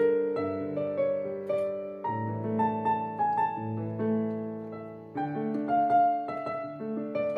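Keyboard played with a piano sound: a slow melody over held chords, with a new low chord struck about two seconds in and again about five seconds in.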